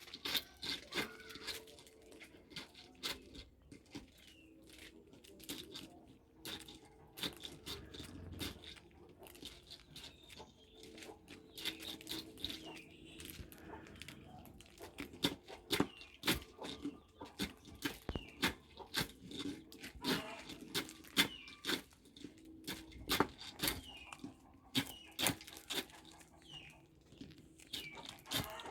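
Dried maize kernels being stripped off the cob in a traditional corn-shelling machine, giving a continuous irregular crunching and crackling of kernels breaking loose and clattering.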